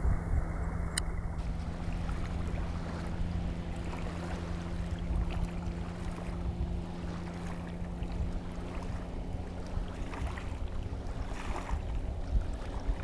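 Wind buffeting the microphone as a low, steady rumble over open lake water. A faint steady hum runs underneath and fades out about three-quarters of the way through.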